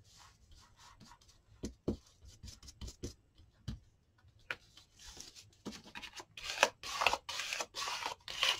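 Hands rubbing and smoothing a glued paper cut-out down onto a paper envelope: dry rustling and scratching of paper on paper, with a few soft knocks on the table, sparse at first and busier and louder in the second half.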